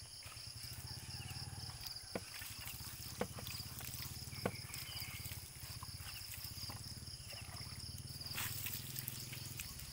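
Water splashed from a dipper onto the underside of a muddy motorcycle and trickling off, with a few sharp knocks.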